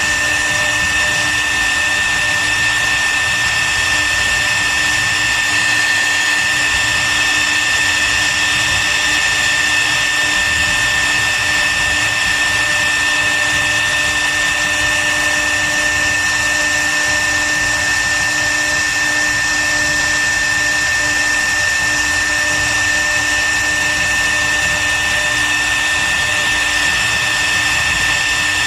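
CNC wood router's spindle running steadily with a high whine while it carves.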